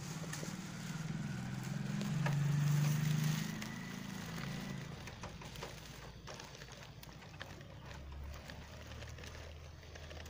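A low motor hum that swells to its loudest about three seconds in and fades out by about five seconds, with scattered light clicks and rustles as a straw stalk is moved through hay.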